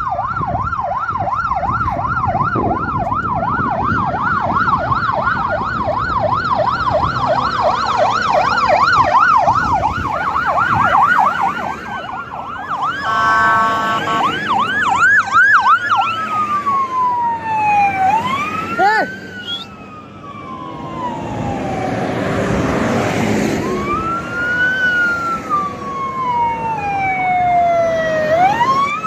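Electronic vehicle sirens on passing pickup trucks. There is a fast warbling yelp for the first dozen seconds and a short steady blaring tone about thirteen seconds in. Then come slow rising-and-falling wails, with a second siren overlapping, over the run of the trucks' engines.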